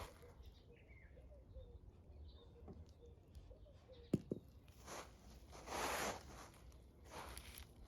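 Hands digging and rustling through potting soil in a potato container: a few short scraping rustles, the loudest about six seconds in, with one sharp click just after four seconds. Faint bird calls can be heard behind it.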